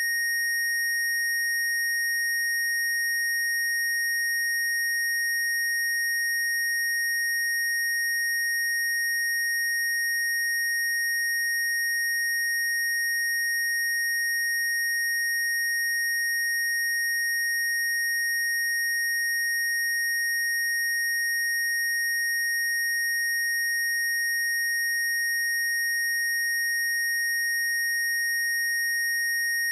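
Steady, unbroken high-pitched electronic sine tone, a generated Rife frequency, with faint higher overtones above it and no change in pitch or loudness.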